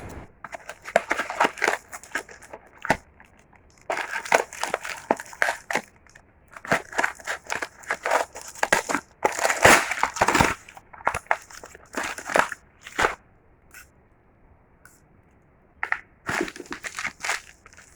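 Packaging being crumpled and handled: bursts of crinkly crackling that stop and start several times, with short pauses between them.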